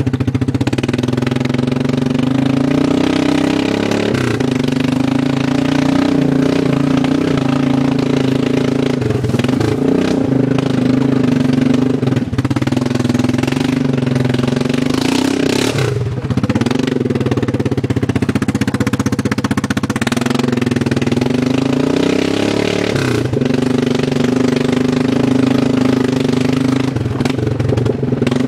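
Arctic Cat ATV with a straight-piped exhaust, running loud while being ridden. Its engine pitch rises and falls repeatedly as the throttle is worked.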